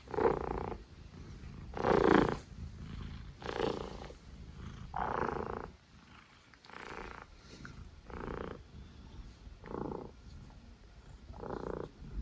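A cat snoring with eight rhythmic snores, about one every second and a half, each under a second long with quiet gaps between them; the loudest comes about two seconds in.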